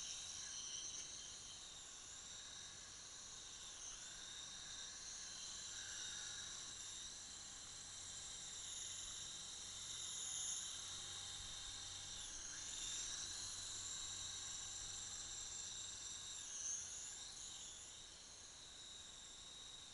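Remote control helicopter in flight: a steady high-pitched motor and rotor whine that dips briefly in pitch a few times.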